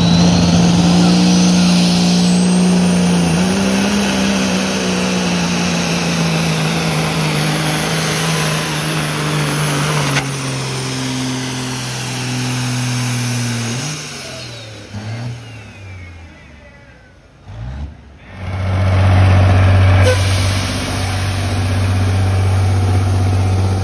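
Diesel semi truck engine at full throttle pulling a weight-transfer sled, its pitch slowly dropping as the load builds and the truck bogs down. About fourteen seconds in the engine backs off and fades. It comes back loud and steady at a lower pitch near the end.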